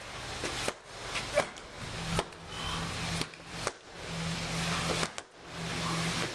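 Heavy 50-lb slam balls thudding onto a rubber-matted gym floor during ball slams, a sharp thud about once a second at an uneven pace as several people slam in turn.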